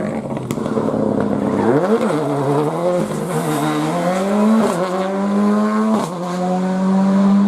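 Rally car engine accelerating hard, its pitch climbing and then dropping sharply at each of several gear changes.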